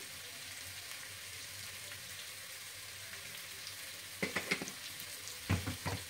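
Boiled potato halves frying in ghee in a kadhai, a steady sizzle. About four seconds in, a spoon knocks and scrapes against the pan several times as they are stirred.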